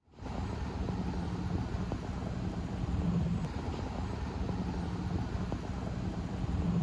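Vehicle engine running steadily at idle, a low rumble.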